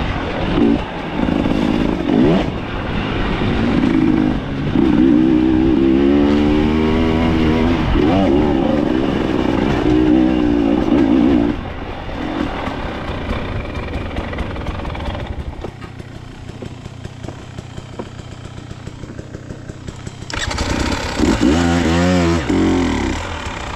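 Dirt bike engine revving in repeated bursts, its pitch rising and falling, for about the first half; it drops to quieter, lower running, then revs up again near the end.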